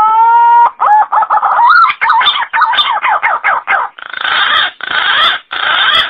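Green pigeon (punai) calling: a long whistled note that rises and then holds, followed by a run of quick warbling notes, ending in three harsher, rougher phrases.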